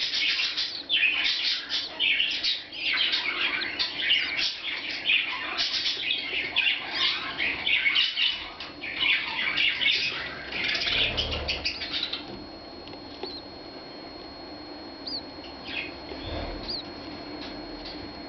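Newborn budgerigar chicks cheeping: a dense run of rapid high squeaks that thins out about two-thirds of the way through, leaving a few scattered peeps over a faint steady high whine.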